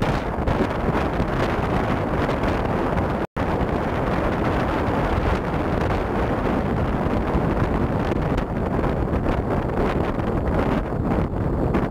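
Wind buffeting the camera microphone on a jeep driving across beach sand, with the steady noise of the vehicle underneath. The sound cuts out for an instant about three seconds in.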